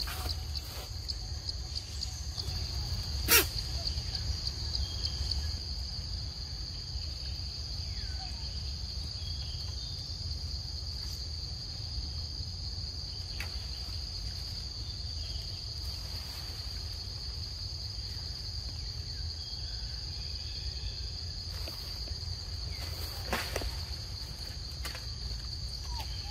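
Steady high-pitched chorus of insects droning without a break over a low steady rumble. A single sharp click comes about three seconds in, with a few fainter clicks later.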